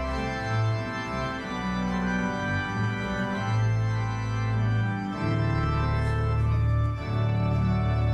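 Church organ playing held chords, with the bass note changing every second or two.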